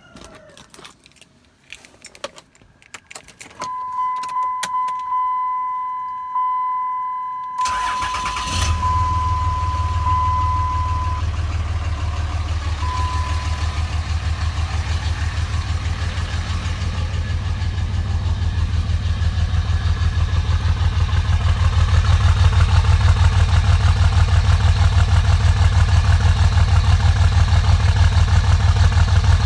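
Clicks and a jangle, then a dashboard chime beeping, before a 2005 Dodge Ram's engine cranks and catches about 8 seconds in. It then idles with a steady low pulsing beat, the cold-start miss that the owner suspects comes from bad injectors.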